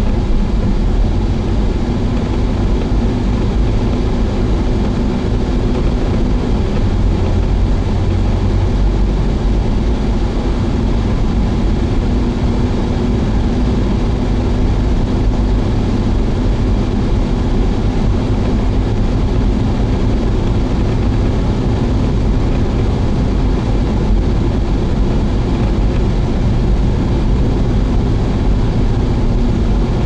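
Car interior noise while driving: steady engine and tyre-on-road noise, mostly low in pitch and even throughout.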